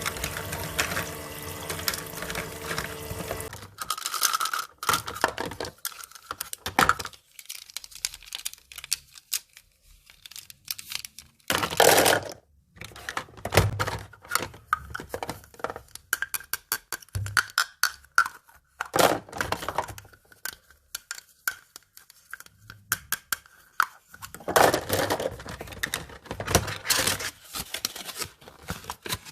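Small plastic toy kitchen pieces being handled and set down: many light clicks, taps and knocks, with some crinkling of packaging. A steady hum, the toy sink's little water pump, runs at the start and stops about three and a half seconds in.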